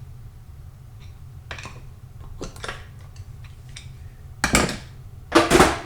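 Metal tools and transmission parts clinking and clanking on a workbench: scattered light clicks, then two louder metallic knocks near the end, over a steady low hum.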